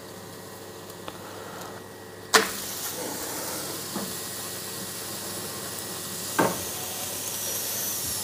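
A metal clank about two seconds in, followed by a steady hiss of steam from hot cookware, with another knock later on.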